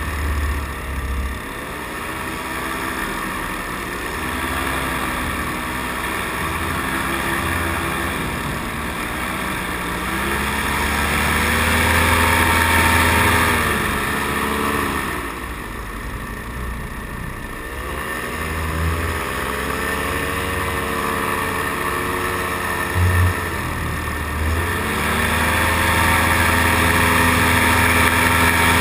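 Paramotor engine running in flight, its pitch rising and falling again and again as the throttle is opened and eased off, over a steady rush of air.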